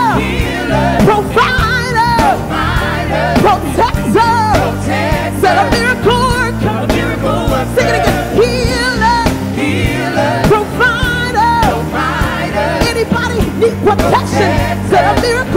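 Live gospel worship music: a woman's lead vocal with gliding, wavering runs over backing singers and a band with drums and keyboard.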